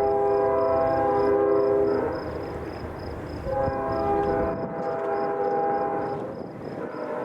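Freight locomotive's multi-chime air horn blowing for a level crossing: one long blast ending about two seconds in, then a second long blast of about three seconds, over the low rumble of the train. A crossing bell dings steadily throughout.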